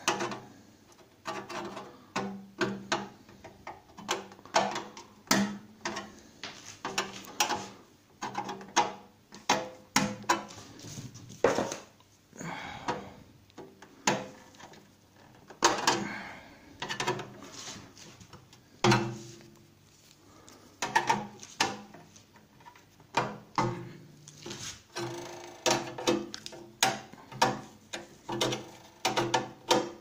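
Side cutters cutting through the plastic tabs of the motor access panel on a microwave oven's underside: repeated sharp plastic snaps and clicks, about one every second, a few louder cracks among them.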